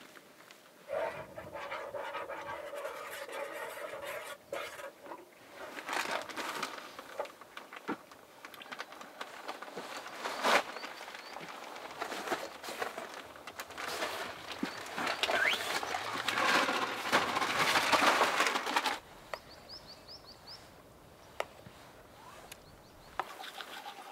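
Camp cooking gear being handled: rustling, scraping, clicks and knocks. Near the end a loud rushing hiss lasts a few seconds and cuts off suddenly. A few faint high chirps follow.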